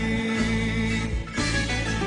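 Live band playing a slow Greek zeibekiko song, with a male singer holding one long note through about the first second.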